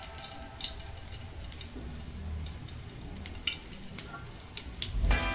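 Potato omelette frying in hot oil in a steel wok: a steady sizzle with irregular sharp crackling pops of spattering oil, and a low thump near the end.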